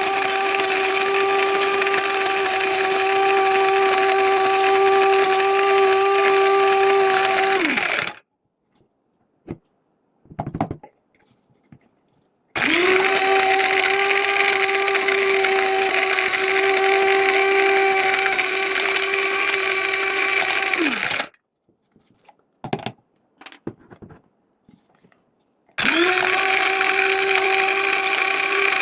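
A 500-watt electric spice grinder grinding hard dried turmeric in three pulses of about eight seconds each. Each run is a steady high motor whine that drops in pitch as the motor spins down. Between the runs there are gaps of a few seconds with only a few faint knocks.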